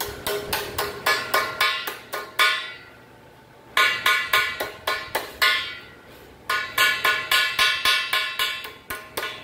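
Hammer blows on sheet steel, each blow ringing, in quick runs of about three to four strikes a second with two short pauses, about a third and two thirds of the way through.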